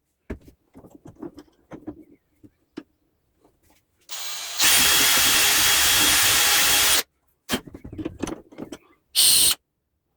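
Pressurised spray hissing out in bursts: one steady blast of about two and a half seconds after a softer lead-in, and a short blast near the end. Light clicks and knocks of small metal parts being handled come between the blasts.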